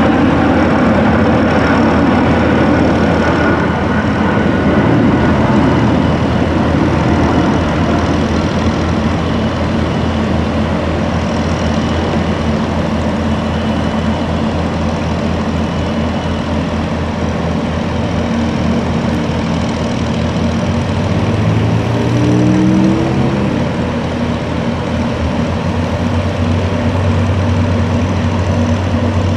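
Diesel engine of a 120-ton Grove mobile crane running steadily while it hoists a steel roof section. About twenty-two seconds in, the engine note rises as it revs up, then holds at the higher speed.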